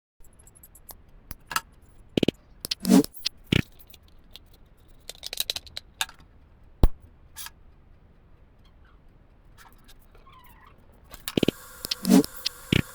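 Small hard parts clicking and knocking as they are handled, with one heavier thud about three seconds in. About eleven seconds in, a steady hiss starts.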